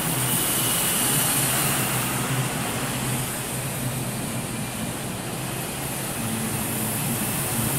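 Miniature gas turbine of an indoor model jet running below full throttle: a steady hissing rush that ebbs a little midway and grows again near the end, echoing in a large hall.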